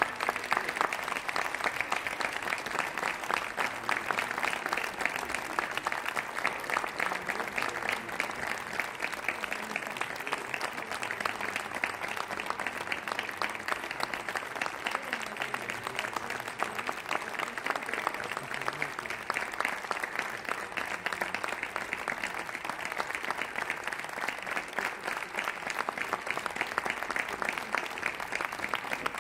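Audience applauding steadily, a dense even clapping that holds without a break.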